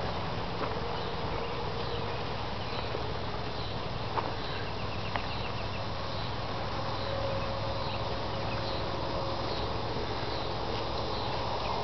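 Steady outdoor background hiss with faint insect chirping and two soft clicks about four and five seconds in.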